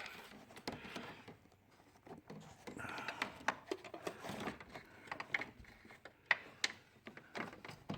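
Scattered light clicks, taps and scrapes of handling as a borescope probe and its cable are worked against the plastic and metal of a car's cowl.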